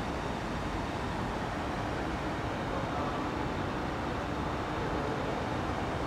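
Steady rushing background noise with no distinct events: the even hum of a large hall.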